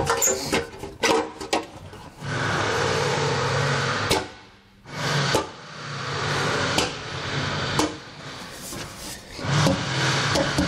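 Stainless steel wheel cover being pressed back onto a motorhome's front wheel: a quick run of metallic clicks and knocks as it seats on the rim, then a steady mechanical drone with a few single knocks.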